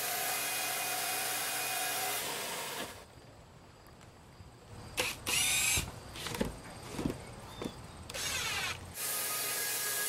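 Homemade wooden band sawmill cutting a sappy spruce log, played back sped up. The steady saw noise stops about three seconds in. After that come knocks and handling sounds, and two short whirring bursts. The sawing noise returns near the end.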